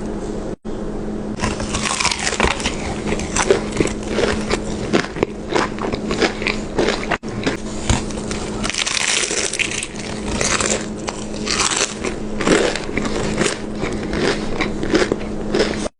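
Close-miked eating: biting into and chewing crunchy food, with dense irregular crunches and wet clicks. The sound cuts out for an instant twice, about half a second in and about seven seconds in.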